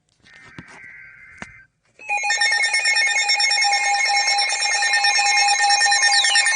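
A faint Emergency Alert System data header burst lasting about a second, then, about two seconds in, the loud, steady two-tone EAS attention signal starts and holds, marking the start of a new severe thunderstorm warning. Two falling tones sweep down across it near the end.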